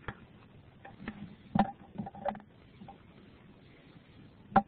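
Handling noise from a foam-head puppet with a t-shirt body being pulled onto a hand: a few scattered soft knocks and rustles, the sharpest just before the end.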